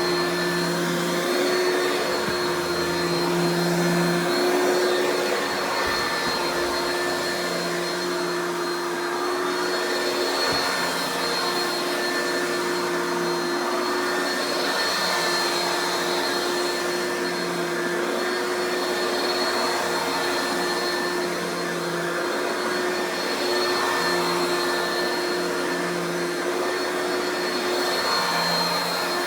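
Oreck XL2 Ultra lightweight upright vacuum running on the high setting of its two-speed motor: a steady, loud motor whine.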